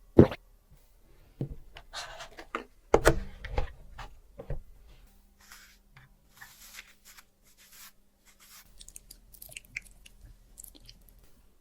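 Small plastic toy pieces being handled: a sharp click, then a quick run of knocks and taps, then softer rustling and scraping.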